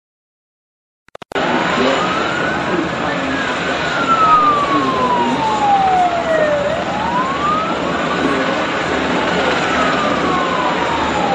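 Emergency vehicle siren wailing, its pitch rising and falling slowly over a steady noisy background. It comes in after about a second of silence at the start.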